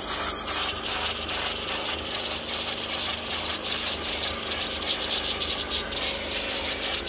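Cordless Coiljet power washer spraying a steady jet of water onto a mini-split's blower wheel: an unbroken hiss of spray, with a low steady hum underneath.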